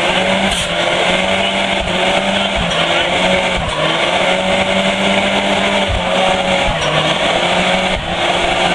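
Dodge Caliber SRT-4's turbocharged 2.4-litre four-cylinder held at steady high revs during a front-wheel burnout, the front tyres spinning and squealing on the pavement, with brief dips in the revs.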